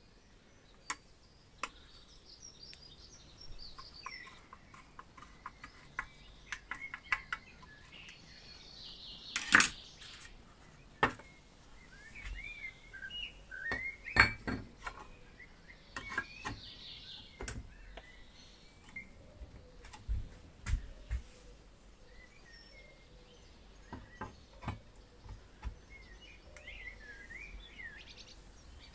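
Clicks, taps and knocks of Harper Beatrice 33 boiling stove parts and a screwdriver being handled and fitted together, the loudest knocks about a third of the way in and about halfway. Small birds chirp in the background.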